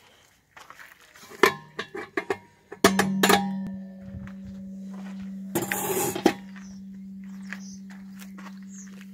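Electric cream separator: a few clicks and knocks, then about three seconds in its motor switches on and runs with a steady hum, loudest at the start before settling. A brief rushing noise comes around six seconds in.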